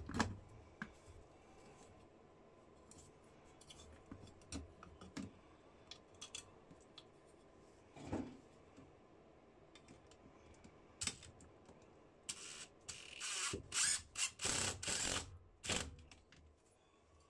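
Hand work on electrical wiring: scattered light clicks and taps, a single knock about eight seconds in, then a run of scraping and rustling near the end.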